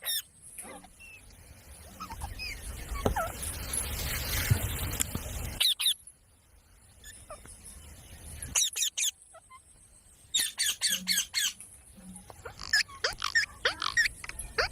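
Rose-ringed (Indian ringneck) parakeet calling in short, sharp chirps and squawks, thickest over the last few seconds. Earlier there is a stretch of low rumbling noise with only a few faint chirps.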